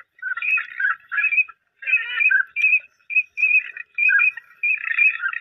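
Ducks calling: bursts of short, high whistled notes, broken by brief pauses.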